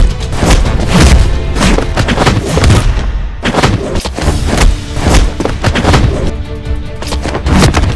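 Loud background music dense with heavy booming hits and sharp impacts.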